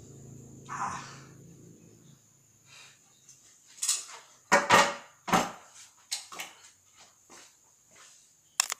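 Several sharp knocks and a clatter as paper and drafting tools are set down on a drawing table, the loudest bunched about four to five and a half seconds in, with camera-handling bumps near the end.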